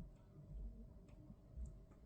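Faint, muffled low thuds twice, with a few light clicks, over a steady low hum.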